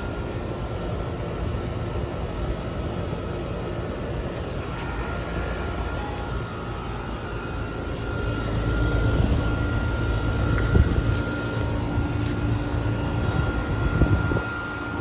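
Outdoor air-conditioning condenser units running: a steady compressor hum and fan rush with a steady high tone over it. The low rumble grows louder from about halfway through, then drops back near the end.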